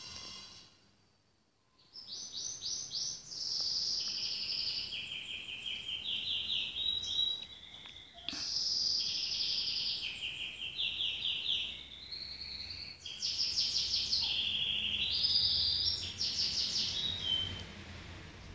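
A songbird singing a long, high song of rapid trills that jump between several pitches, starting about two seconds in, with a couple of short breaks.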